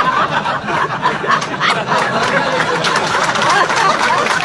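A roomful of people laughing loudly together at a joke's punchline, with scattered hand clapping joining in near the end.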